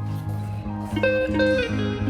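Background music: plucked guitar over a steady bass pattern, with a higher guitar melody coming in about a second in.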